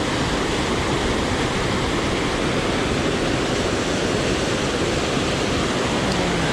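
Small mountain creek water rushing, a steady even noise.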